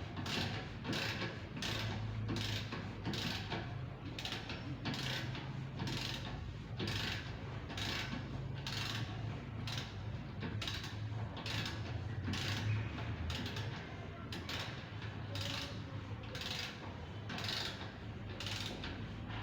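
Rhythmic mechanical strokes, about two to three a second, over a steady low hum.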